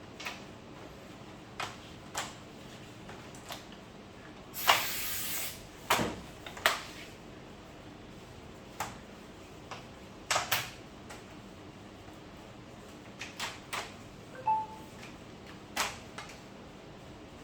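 Scattered light clicks and taps of parts and tools being handled, with a brief hissing scrape about five seconds in.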